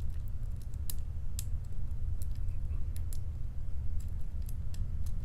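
Small metallic clicks of a lock pick working the pins of a challenge padlock under tension, irregular and a few to the second, over a steady low hum.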